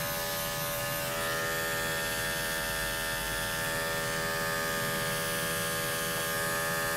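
Corded electric pet clippers running with a steady hum while shaving a cat's heavily matted coat down close to the skin.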